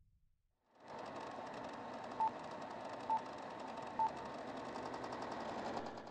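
Three short, identical electronic beeps about a second apart over a steady hiss that starts about a second in and fades out near the end.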